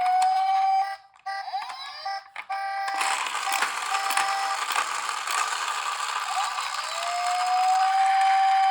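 Toy emergency-vehicle minicar's electronic siren wailing: it glides up to a steady tone, cuts out about a second in and stutters in short beeps, then glides up and holds again near the end. From about three seconds in, a steady rattling clatter runs under it as the toy rolls down the ramp.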